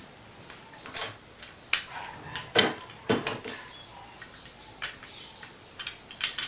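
Several sharp metallic clinks and knocks, spaced irregularly, as metal tools and parts are picked up and set down against hard surfaces.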